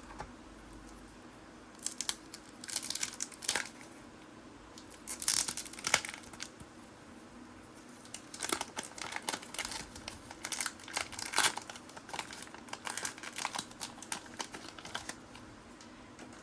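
Paper and foil of a trading-card pack being torn and crinkled by hand, in irregular rustling spells: a short one about two seconds in, another around five seconds, then a longer stretch from about eight to fifteen seconds.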